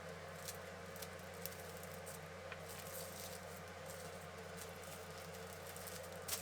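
A steady low hum from a running motor or appliance, with a few faint light clicks and taps over it.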